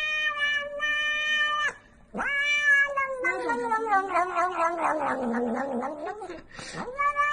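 A cat yowling in long, drawn-out meows while it licks paste from a tube. The first call holds steady, the second is longest, falling in pitch and turning rough, and a short third call comes near the end.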